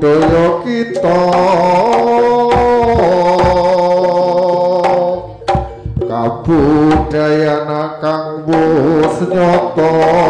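Live jaranan accompaniment music: a wavering melodic line over a steady low drone, with hand-drum strokes breaking through about five seconds in.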